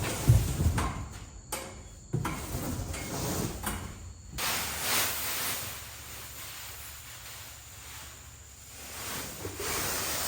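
Irregular knocking and scraping of materials being moved and handled, with a heavy thump at the start and noisy scraping swells after it.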